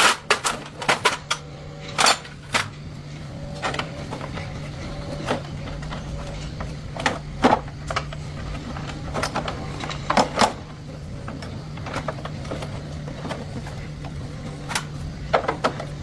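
Irregular metallic clicks, taps and clinks of hand tools and parts being handled during motorcycle repair work, over a steady low hum.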